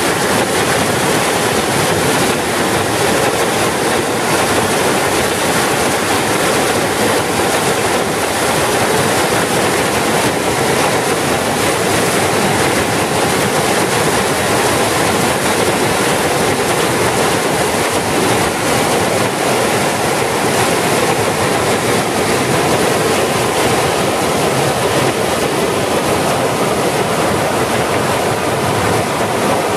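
Floodwater rushing and churning as whitewater in a concrete-walled urban river channel: storm runoff surging in during a heavy downpour. The sound is loud and steady.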